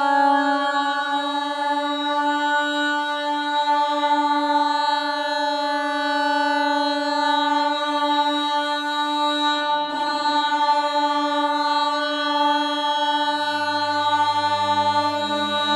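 Drone-like music of long, steadily held tones, with deeper notes coming in near the end.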